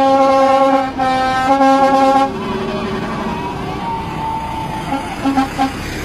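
A lorry's telolet musical horn sounding a loud multi-note chord for about two seconds, with a brief break about a second in, then fainter horn tones and a few short toots near the end.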